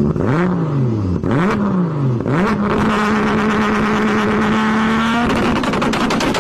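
A vehicle engine accelerating through the gears: the revs climb and drop at each of three quick shifts, then hold steady for a few seconds before the sound turns rougher.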